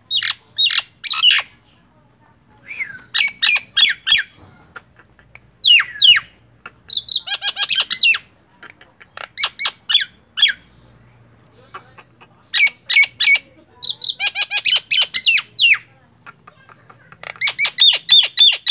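Common myna (jalak nias) calling in a string of bursts: quick runs of harsh chattering notes mixed with sharp whistles, each run lasting about a second, with pauses of a second or two between them.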